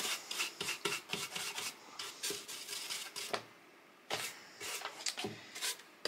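Bristle paintbrush stroking milk paint onto a wooden tray, a quick run of short scratchy strokes. The strokes stop briefly a little past halfway, then start again.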